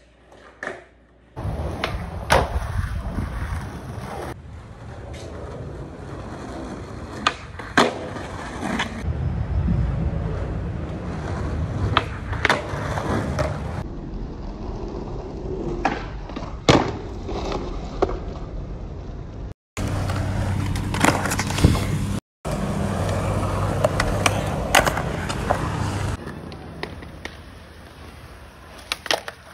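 Skateboard wheels rolling on concrete and pavement, with sharp clacks of the board popping, flipping and landing during tricks. The rolling noise changes or drops out abruptly several times.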